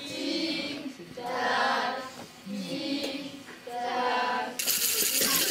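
Children singing a song in several held phrases. About four and a half seconds in, a loud, even rush of noise takes over.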